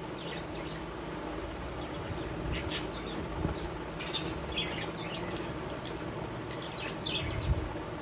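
Caged pet budgerigars chirping in short, scattered calls over a steady low background hum, with a dull thump near the end.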